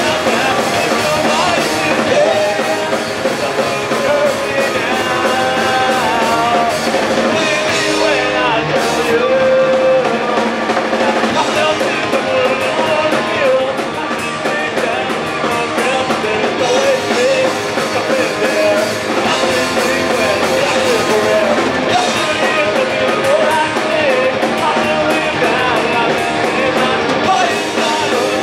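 Punk rock band playing live: guitar and drum kit with singing over them.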